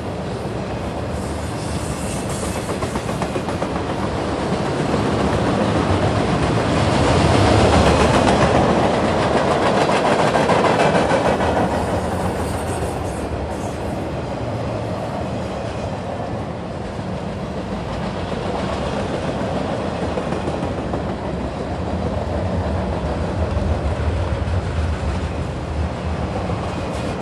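Freight train flatcars rolling past: a steady rumble of steel wheels on rail with a run of clicks over the rail joints, swelling louder for several seconds about a quarter of the way in.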